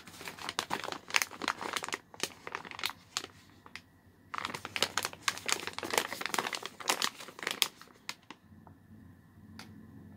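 Plastic dog-treat pouches crinkling and rustling as they are handled and picked up: two long stretches of crackling with a short pause between, then a few light crinkles near the end.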